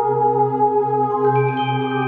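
Ambient background music: slow, sustained tones over a low drone, with new higher notes coming in about a second and a half in.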